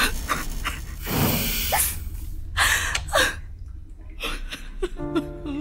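A person gasping and breathing heavily, a run of sharp breaths a second or so apart, over a low steady hum. Music comes in about five seconds in.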